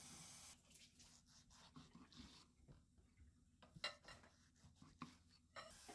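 Long kitchen knife slicing a yellow tomato on a wooden cutting board: faint cutting and scraping with a few light taps of the blade on the board, the sharpest about four seconds in.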